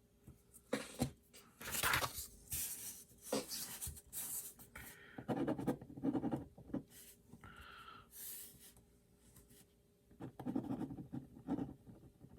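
Bastion Slim Bolt Action Pen writing on paper, its tip scratching in a run of short strokes with a brief pause near the end, as a new pen is first tried out.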